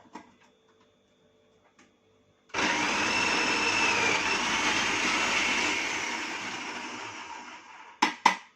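Electric food chopper motor running while chopping vegetables: it starts suddenly about two and a half seconds in, runs steadily with a faint whine that dips briefly, then winds down and fades over the last couple of seconds. Two short clicks near the end.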